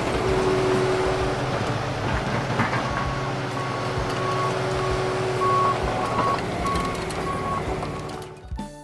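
Front loader's diesel engine running steadily, with its reversing beeper sounding about twice a second from about three seconds in; the sound fades out near the end.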